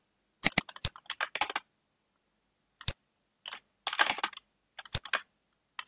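Keys tapped on a computer keyboard in short bursts, with a lone click about three seconds in and brief pauses between the bursts.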